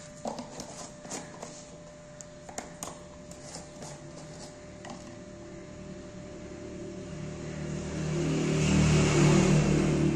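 Light clicks and taps of plastic containers and lids being handled while powder is scooped onto a scale. From about six seconds in an engine sound swells, loudest near the end and starting to ease off.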